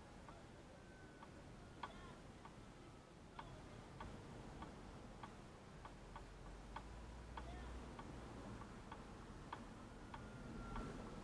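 Faint, regular ticking, about three ticks every two seconds, over a low rumble, with a faint thin tone that slowly drifts in pitch.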